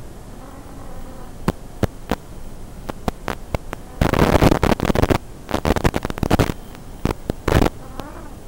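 Hiss and static from an analog FPV video receiver's audio channel, with scattered crackles in the first few seconds and loud bursts of static from about four seconds in, as the video signal breaks up.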